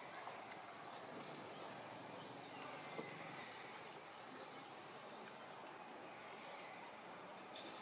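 Steady high-pitched drone of insects, dipping briefly in pitch every second or two, over a soft outdoor hiss with a few faint clicks.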